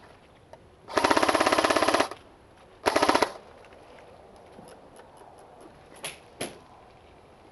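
Airsoft electric gun firing on full auto: a burst of about a second, then a short burst about a second later. Two faint knocks follow near the end.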